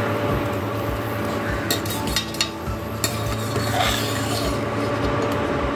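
A spatula stirring and tossing cooked rice in a stainless steel pan, rustling and scraping, with a few sharp clinks where it knocks the pan.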